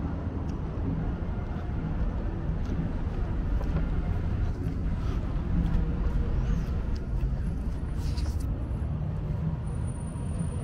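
City street traffic noise: a steady low rumble of passing cars.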